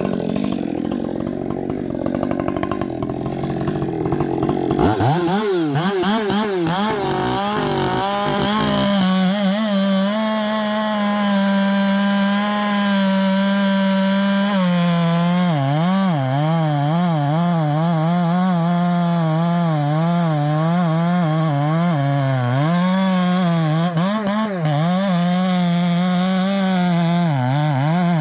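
Husqvarna 564XP chainsaw running hard: a heavy, rough sound for the first few seconds, then the engine climbs to a high, steady speed that wavers up and down as it works.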